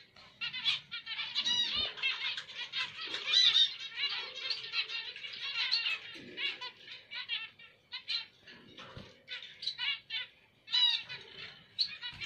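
Caged zebra finches calling and singing: quick runs of short, high chirping notes, with a brief pause about eight seconds in.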